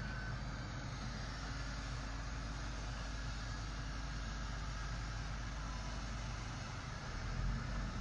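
Tracked asphalt paver running steadily: a continuous engine and machinery hum with a steady low drone. The low rumble grows louder about seven seconds in.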